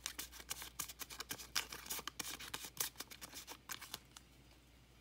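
Small packet of Sea-Monkeys water purifier crinkling and crackling as it is shaken and tapped to empty its crystals into a water-filled glass bowl, stopping about four seconds in.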